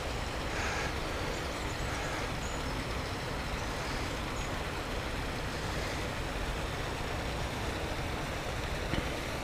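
Steady outdoor background noise, an even rumble and hiss with no distinct events.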